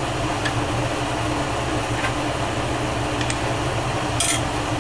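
Bench-mounted glassworking torch burning with a steady rushing hiss. A few faint ticks sound over it, and a brief clink about four seconds in.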